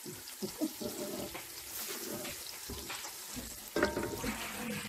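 Fried onions sizzling and crackling in hot oil in a metal pot, stirred with a wooden spoon, the stirring louder about four seconds in.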